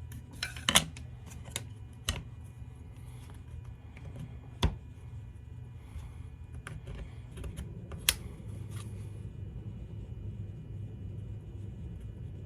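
Scattered light knocks and clicks of small wooden shelf parts being handled, pressed together and set down on a work surface. The sharpest comes just under a second in, with others about two, four and a half and eight seconds in, over a low steady hum.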